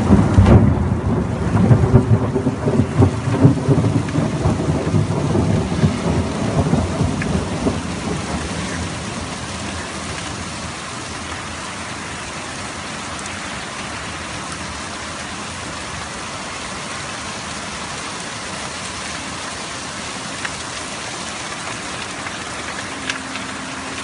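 A roll of thunder rumbling loudly and dying away over about eight seconds, over steady rain falling on wet pavement. The rain hiss then carries on evenly on its own.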